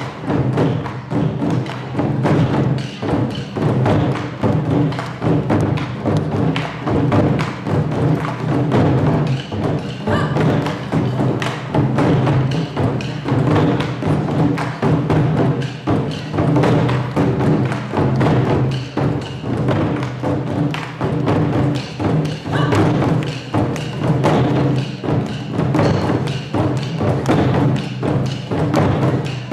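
Music with dense, rapid percussion strikes over sustained low tones, at an even loudness.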